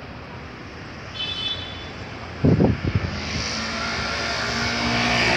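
A motor vehicle on the street approaching: a steady engine hum and road noise grow louder through the second half. Just before it, a few short low thumps are the loudest sounds.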